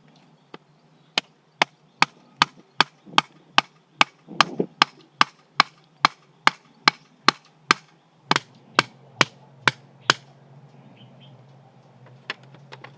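Kitchen knife chopping on a cutting board in a steady rhythm of about two and a half strokes a second. The chopping stops about ten seconds in, and one more knock follows near the end.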